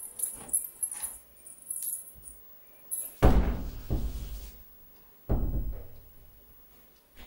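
Light clicking rattles, then two heavy thuds about two seconds apart, each dying away over about a second.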